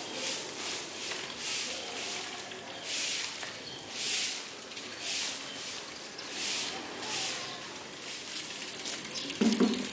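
A bicycle being wheeled along on foot: soft swishing sounds roughly once a second, then a rapid fine ticking near the end, like a freewheel ratcheting as the wheel rolls. A short low sound comes right at the end.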